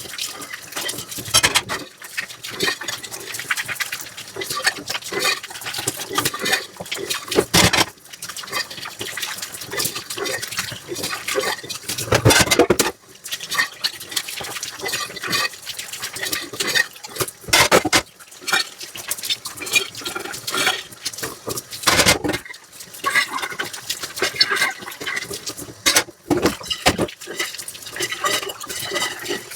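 Dishes being washed by hand in a sink: water running and splashing, with scrubbing and repeated clinks and knocks of dishes against each other and the sink, and several louder splashes of water along the way.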